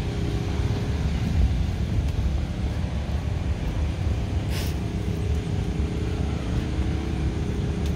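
Steady low rumble with a constant engine hum from motors running outdoors, with a brief high hiss about halfway through.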